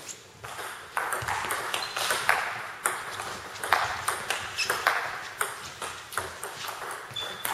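Table tennis rally: the ball clicks off the bats and the table in quick alternation, about two to three hits a second, each echoing in a large hall. One bat is faced with Nittaku Monophonic long-pimpled rubber.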